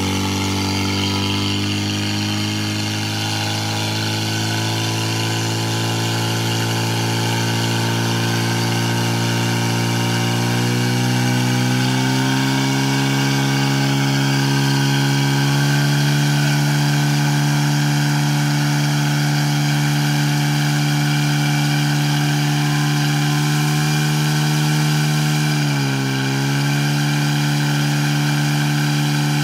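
Portable fire pump engine running hard and steady while pumping water out through the hose lines to the nozzles. Its pitch steps up about eleven seconds in and dips briefly near the end.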